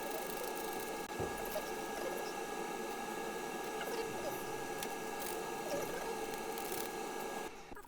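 Kitchen cooking noise played back at four times speed: a steady dense hiss with a constant high whine and scattered small clicks. It cuts off suddenly near the end.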